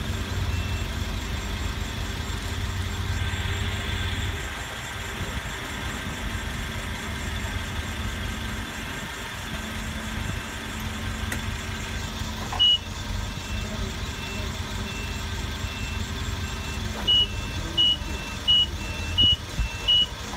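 Forklift running with a steady low hum that eases a little about four seconds in, and its warning beeper sounding: faint short beeps through much of the time, one loud beep about halfway, then loud regular beeps about one and a half a second near the end.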